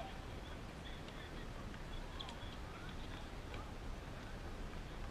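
Faint outdoor background: a steady low rumble with scattered distant voices and short, faint high chirps.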